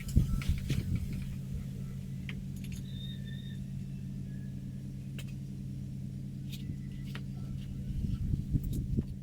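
Small scooter engine idling steadily, with a few light clicks and taps over it.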